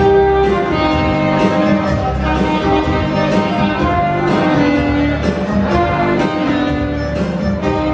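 Duet of two alto saxophones playing a melody in held and moving notes over a steady beat.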